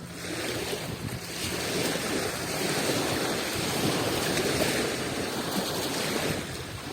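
Adriatic Sea waves washing onto the shore: one long swell of surf that builds about half a second in and eases near the end.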